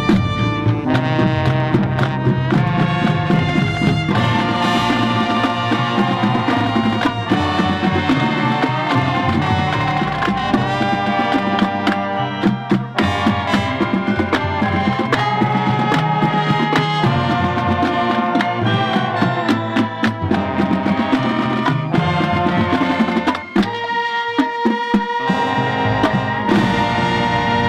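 Marching band playing: brass with snare drums, bass drums and front-ensemble mallet percussion such as marimba. The bass drops out for a moment about three-quarters of the way through.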